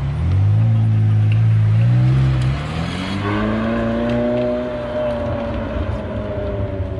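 McLaren 720S's twin-turbo V8 pulling away: a loud steady engine note for the first couple of seconds, then the pitch rises as the car accelerates, and the sound drops back as it drives off.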